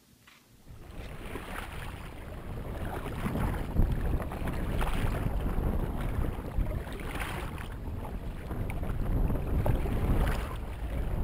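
Wind rushing over the microphone on a kayak out on open water, starting about a second in, with swells every two to three seconds from kayak paddle strokes in the water.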